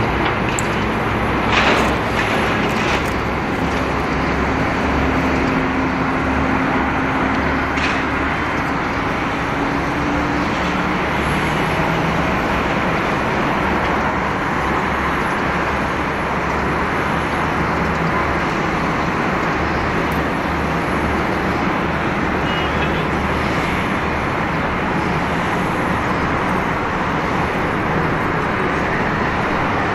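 Boeing 767 airliner's twin jet engines at taxi idle: a steady jet rush with a low hum. A brief knock sounds about two seconds in.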